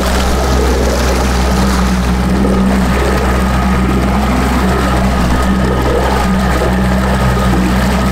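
Boat's outboard motor running steadily while under way, a constant low drone with a steady rush of noise over it.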